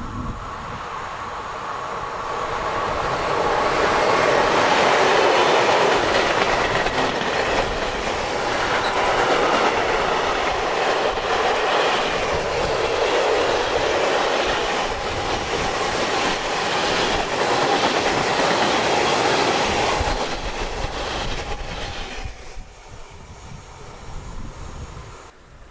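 Freight train passing: an electric locomotive hauling a long string of open wagons loaded with coiled wire rod, the wheels running along the rails. The sound builds over the first few seconds, stays loud while the wagons go by, and falls away about 22 seconds in as the end of the train passes.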